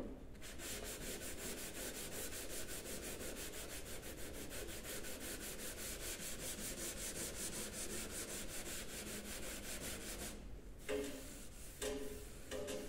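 A small sanding block rubbed by hand over a scratch in a black-painted car door, in quick, even back-and-forth strokes, stopping about ten seconds in. Near the end come a few separate squeaky rubs as a bare hand wipes across the glossy paint.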